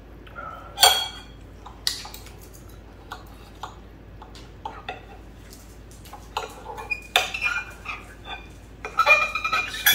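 Knives and forks clinking and scraping against dinner plates as food is cut, in scattered taps with a few short ringing clinks, loudest about a second in and in a cluster near the end.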